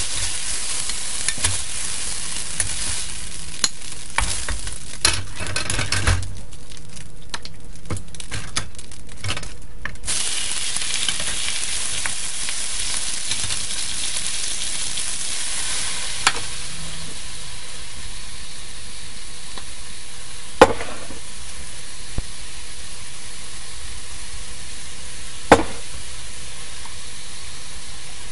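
Stir-frying in a steel wok: hot oil sizzling under scraping and clinking from a metal spatula, first over beef and then over Chinese broccoli (kai lan). The sizzle swells sharply about ten seconds in, as the greens hit the hot wok, and eases after a few seconds. Two sharp spatula knocks on the wok rim come later.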